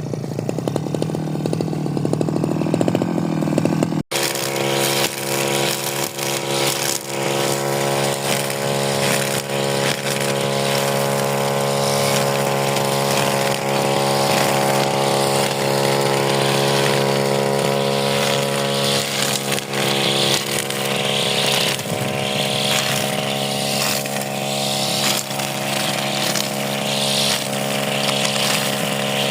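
Stihl two-stroke brush cutter engine running steadily at high revs. The sound drops out for an instant about four seconds in, then carries on.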